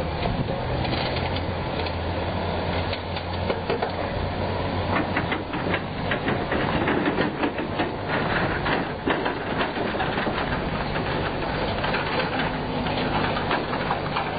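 Morgan Aero's V8 engine running at low speed with a steady low exhaust note as the car pulls slowly away, with a patch of quick crackling clicks about midway.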